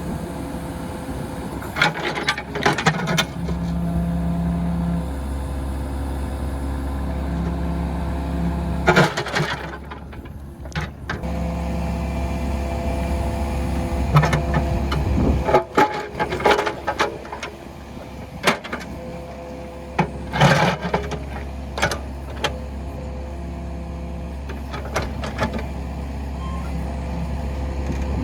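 Kubota KX71 mini excavator's diesel engine running, its level shifting as the machine works, with irregular clanks and knocks scattered through it as the old concrete footer is worked out of the ground.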